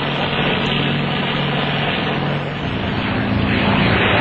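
Propeller aircraft engine running steadily, heard through the dull, muffled sound of an old newsreel soundtrack; about two and a half seconds in, its pitch rises and it grows louder.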